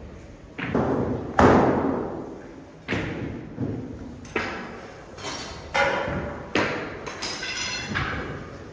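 Irregular thuds and knocks, about ten of them, of long wooden rolling pins and phyllo dough sheets striking a baklava workbench, each ringing out in a large echoing room. The loudest comes about one and a half seconds in.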